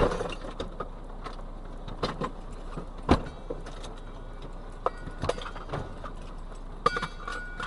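Scattered knocks, clicks and rattles over a steady low hum, with a sharp knock at the very start and another about three seconds in.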